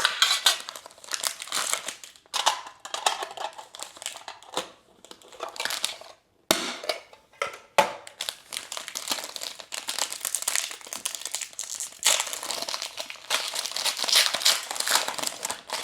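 Foil and plastic packaging of Pokémon card booster packs crinkling and crackling as it is handled and opened, with a brief pause about six seconds in.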